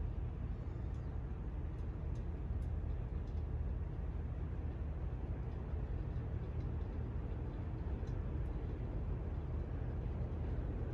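48-inch Honeywell Carmel ceiling fan running on high: a steady whoosh and low hum, with a few faint ticks. The fan is pretty noisy for how little air it moves.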